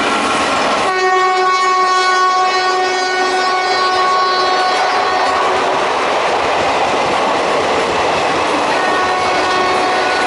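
The horn of a WAP-4 electric locomotive blows one long, steady blast, starting about a second in and fading out after about four seconds. Fainter horn tones return near the end. Throughout runs the continuous wheel-on-rail noise of the express train passing at speed.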